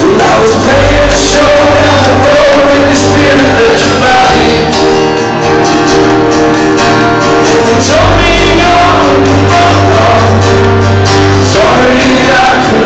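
Live acoustic band playing and singing: strummed acoustic guitars and an upright double bass under a sung vocal line, loud and continuous in a large hall.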